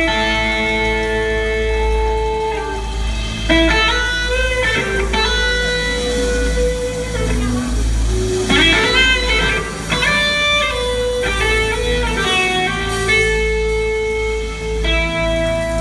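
Live blues-rock band jamming, with an electric guitar lead playing held notes that bend and slide in pitch over a steady low bass.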